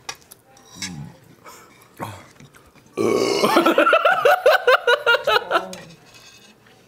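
A few light clinks of metal chopsticks in a pan, then about three seconds in a man lets out a loud, drawn-out burp lasting over two seconds, with laughter.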